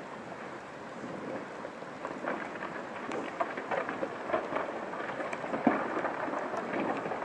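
Rain pattering: a steady hiss of falling rain with irregular drop ticks that grow denser from about two seconds in.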